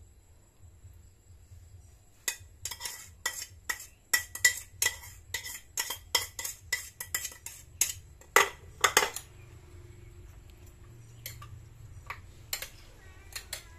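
Metal spoon clinking and scraping against ceramic bowls in a quick run of strokes, about two or three a second, as sauce is scraped out over chicken pieces. The clinking then thins to a few scattered taps.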